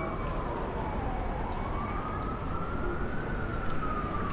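An emergency vehicle's siren wailing, its pitch sliding slowly down, back up and down again, over the steady rumble of city street traffic.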